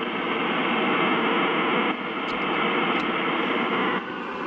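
Ham radio receiver hiss: steady static and band noise from a Yaesu FTDX3000 tuned to the 80-metre band, cut off above and below like single-sideband receive audio, with no signal in it. Two faint clicks come about two and three seconds in.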